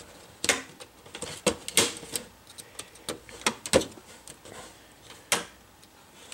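Plastic screen bezel of an HP ProBook 4540s laptop being pried along its bottom seam with a hobby knife: about eight sharp, irregular clicks as its clips snap loose, the sign that the bezel is coming off.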